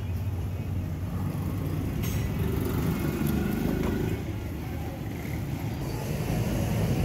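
Motor vehicle engine running nearby, a steady low rumble that swells slightly between two and four seconds in, with a single light click about two seconds in.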